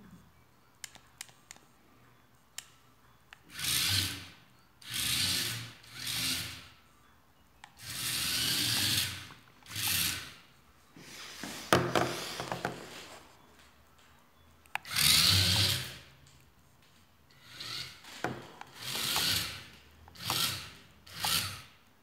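Small yellow plastic DC gear motors of a four-wheel Arduino robot car whirring in about ten short bursts, each starting and stopping as the car is driven by remote control. A few light clicks come before the first burst.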